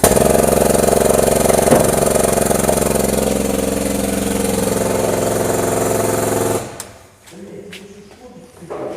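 Honda Civic engine given gas and held at raised revs, running loudly and steadily for about six and a half seconds with a slight dip in pitch midway, then dropping away.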